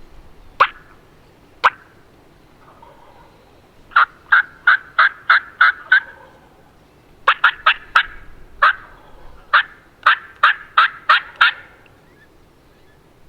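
Hen-turkey yelping: two single sharp notes, then three runs of short yelps at about three a second, loud and close.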